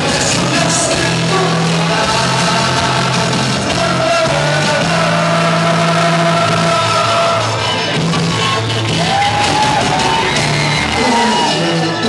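A man singing into a microphone over loud rock backing music, holding long notes with glides in pitch, through a PA in a large hall.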